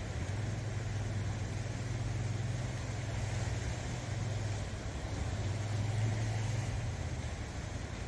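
Sea waves washing over a rocky shore. A steady low engine hum runs under them and fades out about a second before the end.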